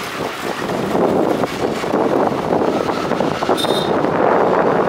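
Riding noise on a moving scooter: wind rushing across the microphone over the scooter's running engine and tyres on the road, steady throughout.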